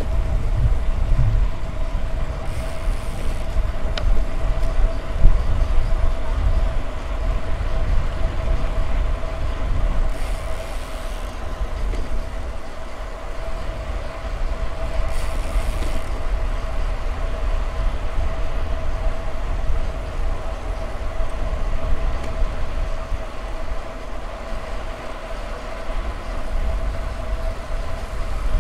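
Wind on the microphone and tyre noise from a bicycle riding along a paved road, with a steady whine throughout.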